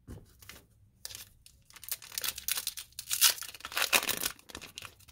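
Foil wrapper of a Pokémon card booster pack being torn open and crinkled by hand: a run of irregular rips and crackles starting about a second in, loudest a little past the middle.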